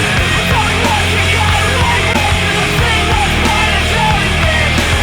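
Loud, distorted punk rock or heavy metal music, an instrumental stretch between sung lines.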